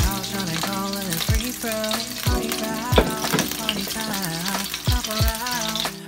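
Cooking oil sizzling in a pan as more oil is poured in, a dense hiss with fine crackle. Under it runs a background R&B song with singing and a regular beat.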